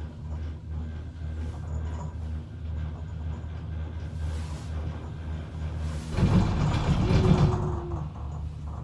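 Steady low hum of a moving cable car heard from inside the cabin, with a louder rumble about six seconds in that lasts about two seconds.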